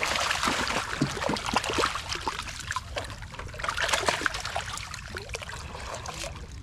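Water splashing and dripping as a wet cast net is hauled out, with fish thrashing at the surface inside the net. The splashing comes in spells, loudest at the start and again about four seconds in.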